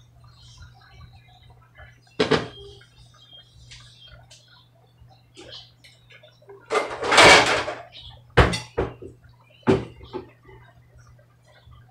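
Someone rummaging in a kitchen cupboard: a knock about two seconds in, a longer clattering rustle about seven seconds in, then three sharp knocks.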